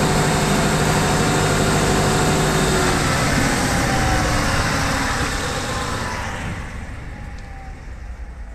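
Diesel generator engine being shut down: it runs steadily, then after about three seconds its pitch slides down and the sound fades away as the engine runs down.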